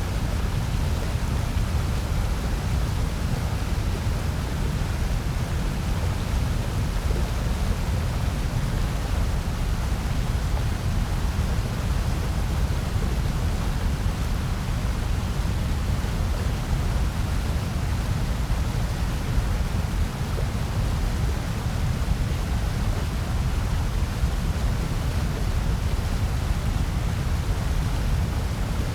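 Steady, unchanging synthetic noise presented as white noise: a deep, even rush with a softer hiss above it, with no breaks or events.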